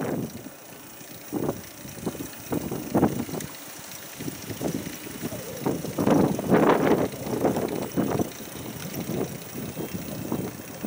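Wind buffeting the microphone in irregular gusts, strongest about six to eight seconds in.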